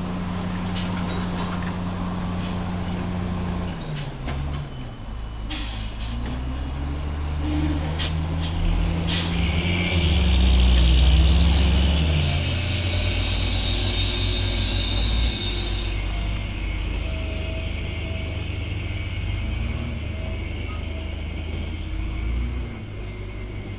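Heavy diesel truck engine labouring on a steep climb, its pitch rising and falling as it is revved under load. A long air hiss comes in about ten seconds in and lasts several seconds, and there are a few sharp knocks in the first half.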